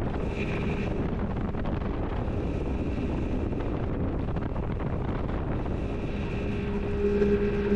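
Outboard-powered speedboat running under way: a steady engine drone beneath heavy wind noise on the microphone, the engine tone growing louder about seven seconds in.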